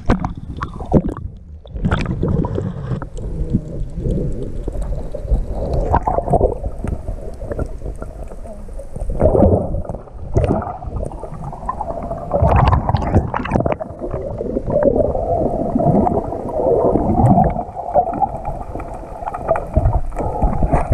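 Muffled water sloshing and gurgling around a camera held at and below the sea surface, heard as a continuous, churning, low noise that swells and fades.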